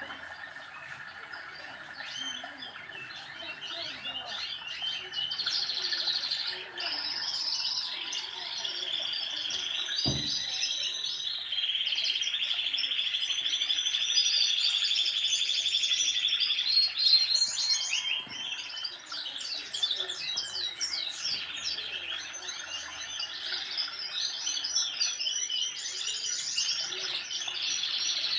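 Many birds chirping and trilling over each other, with one long buzzy trill near the middle, and a single low thump about ten seconds in.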